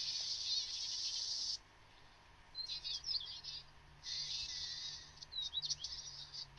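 Cartoon soundtrack playing through laptop speakers, heard thin and high: a hiss about two seconds long, then squeaky chirping sounds, a second hiss and more chirps.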